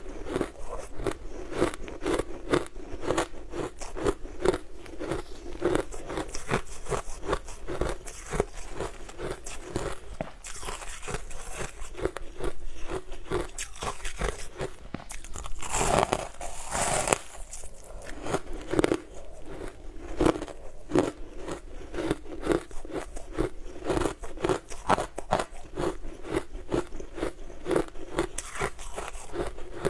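Close-up crunching and chewing of frozen blue ice chunks, a quick run of sharp, brittle crunches as the ice is bitten and ground between the teeth. About halfway through there is a louder crackling stretch lasting a second or two.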